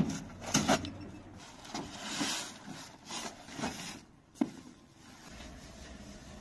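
Irregular rubbing and scraping, as of objects being handled, with a few sharp knocks, the loudest near the start and about four seconds in.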